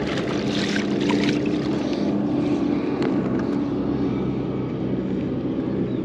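A steady low motor drone under a haze of wind and water noise, with brief splashing and sloshing in the first second or so from a big chub moving in a landing net in shallow water.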